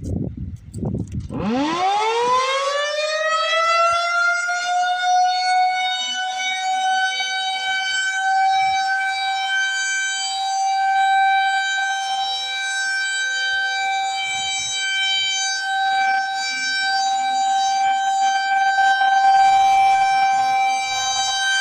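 Federal Signal 2001-SRNB outdoor warning siren winding up about a second in, its pitch rising quickly and then holding a steady high tone with many overtones. This is the steady alert signal of a siren test.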